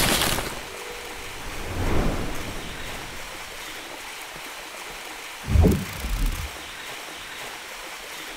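Channel intro sound effect: a rushing whoosh at the start and another about two seconds in, then two deep booms a little after five seconds, over a steady hiss like running water.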